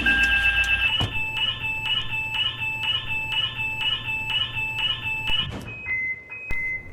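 Car alarm siren sounding. A steady high pulsing tone switches about a second in to a two-tone pattern that alternates high and low about twice a second, stops about five and a half seconds in, and is followed by a few short single beeps at different pitches.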